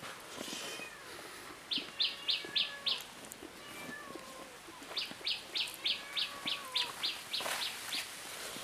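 A bird calling in quick runs of short high notes, about four a second: a run of five, then after a pause a longer run of about ten. Fainter gliding tones sound underneath.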